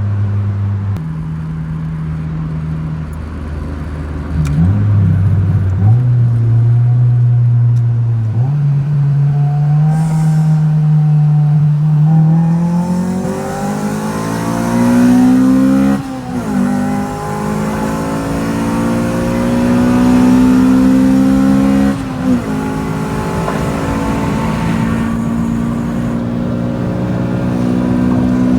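Honda B16A2 four-cylinder engine with an aftermarket cat-back exhaust, pulling hard through the gears. Its note climbs steadily in pitch and drops sharply at each upshift, twice in the second half.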